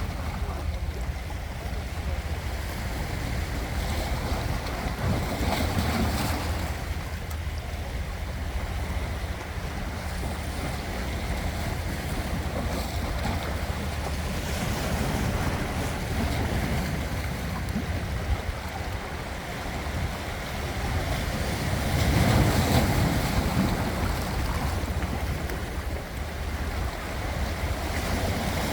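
Ocean waves washing onto the shore in a continuous wash, swelling louder as waves break, about six seconds in and again a little past twenty seconds.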